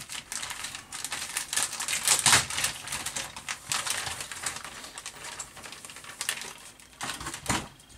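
Clear plastic bag crinkling and rustling as a plastic model-kit parts sprue is slid out of it, a dense run of crackles and small clicks, loudest about two seconds in and again near the end.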